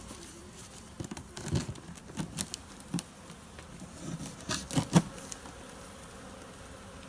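A swarm of honeybees buzzing as they pour out of the opened box, with scattered knocks and bumps throughout; the loudest knock comes about five seconds in.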